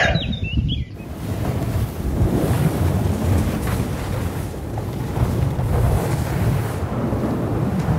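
Wind buffeting the microphone: a steady rushing roar with low rumbling gusts. A bird chirps briefly at the very start.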